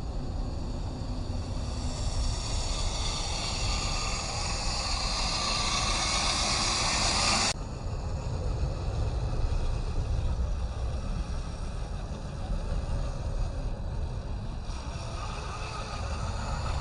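1/10-scale RC crawler driving over rough ground: a rough, noisy running sound with low rumble from wind on the microphone. The sound changes abruptly about seven and a half seconds in, the brighter hiss dropping away.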